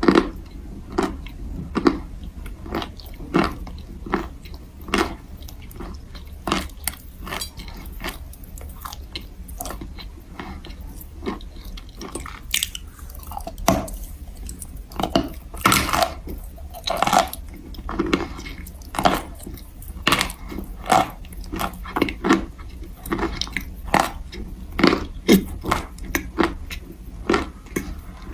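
Close-miked biting and chewing of a hard chalk bar, with frequent sharp crunches as pieces snap off and are ground between the teeth.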